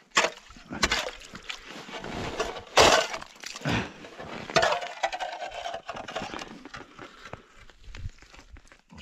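Metal shovel blade knocking and scraping in an ice-fishing hole, scooping out slush and broken ice that crunches and clinks; several sharp knocks over the scraping. The hole is narrowing as it freezes over in the severe cold.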